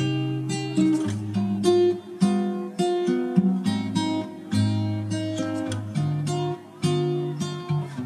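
Background music: an acoustic guitar picking a melody, two or three plucked notes a second, each ringing and fading.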